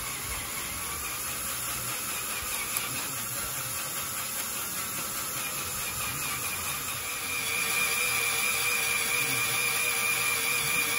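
Cordless drill running steadily, its oiled bit cutting a pin hole into an LS V8's crankshaft snout for a crank pin kit. Its whine grows stronger about halfway through.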